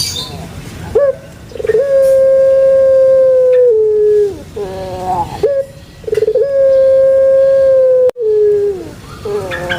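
Puter pelung dove (a Javanese breed of Barbary dove, Streptopelia risoria) cooing: two long drawn-out calls, each opening with a short rough stutter, held at one pitch for about two seconds and dropping at the end.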